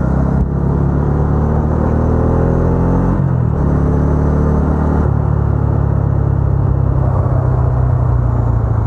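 Bajaj Dominar's single-cylinder engine heard from the bike itself under way, accelerating: its note rises, drops at a gear change about three seconds in, rises again, then holds steady at cruising speed.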